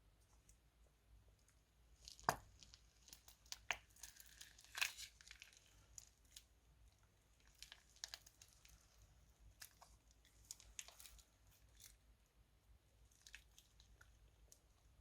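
Faint crinkling and crackling of plastic piping bags being handled, starting about two seconds in, thickest for the next few seconds, then scattered crackles.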